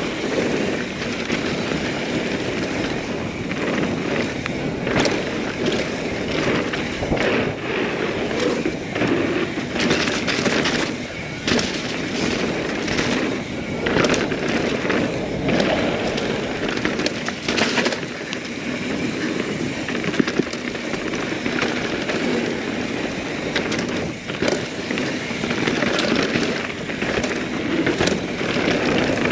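Norco Sight full-suspension mountain bike riding down a dirt singletrack. The tyres rumble and crunch over the trail while the chain and frame rattle, with frequent sharp knocks as the bike hits roots and rocks.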